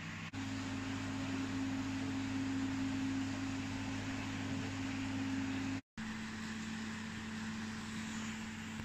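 Steady low mechanical hum over an even hiss, with no frog calls. It drops out for an instant twice at cuts, and its pitch shifts slightly after each.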